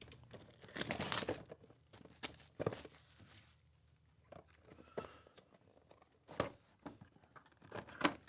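Plastic shrink-wrap being torn and crinkled off a cardboard trading-card box, loudest in a dense stretch about a second in, followed by scattered sharp crackles and taps as the box is handled and its lid opened.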